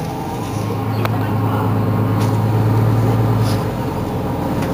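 Mercedes-Benz Citaro G C2 articulated bus's diesel engine idling while standing, a steady low hum that strengthens about half a second in and eases again near the end, with a few sharp clicks.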